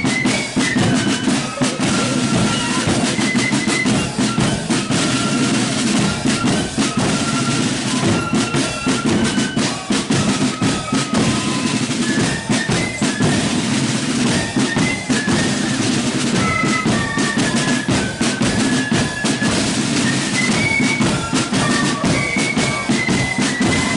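A marching flute band plays a tune, the flutes carrying the melody over snare drums and a bass drum that keep a steady march beat.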